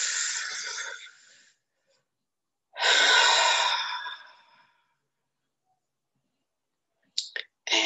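A woman's slow, deep breaths into a close microphone, two of them: one fading out about a second and a half in, the next, a sigh-like breath, starting just before three seconds in and trailing off over about two seconds. These are the deep belly breaths of a calming exercise.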